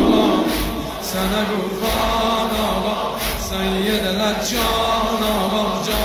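A man's voice chanting in slow, long held notes that break and resume every second or so.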